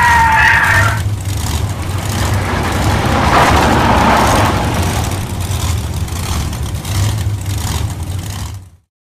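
Dubbed monster-truck engine sound effect: a steady low engine rumble, with a high tire-squeal-like whine fading out about a second in and a rougher, noisier rush around three to four seconds in. It cuts off abruptly near the end.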